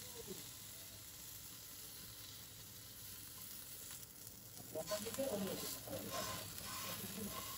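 Sticks of skewered cheese sizzling in a hot nonstick frying pan. After about four and a half seconds, tongs move the skewers and the sizzle turns louder and more crackly.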